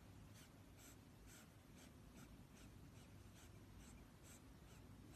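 Near silence with a chow chow puppy's faint, rhythmic breathing close to the microphone, soft puffs about twice a second.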